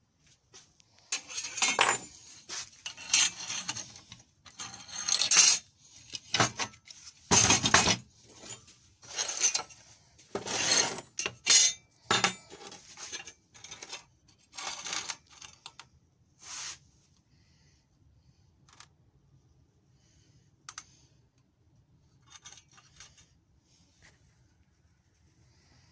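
Hard metal objects clinking and clattering against each other in a quick run of knocks, thinning to a few scattered clicks after about sixteen seconds.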